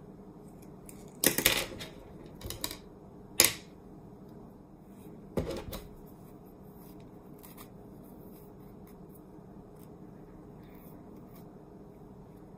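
Hands working in hair while parting off a section for a braid: a few short scratchy rustles in the first six seconds, the sharpest about three and a half seconds in, then faint ticks over a steady low room hum.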